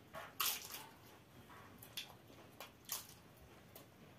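People eating close to the microphone: a loud crunchy bite into crisp papad about half a second in, then several shorter crunches and mouth smacks while chewing.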